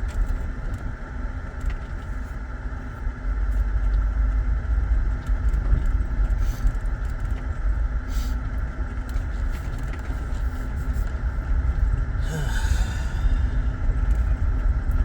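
Inside the cabin of a moving 2008 Saturn Vue: steady low road and engine rumble with a faint constant hum.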